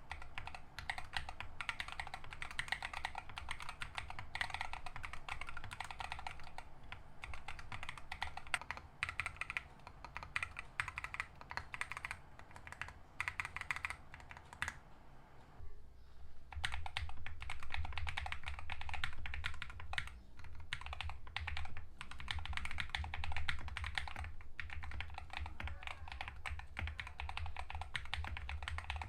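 Typing on a mechanical keyboard fitted with AKKO CS Ocean Blue tactile switches: a rapid run of key clicks and clacks, with a short pause about halfway through.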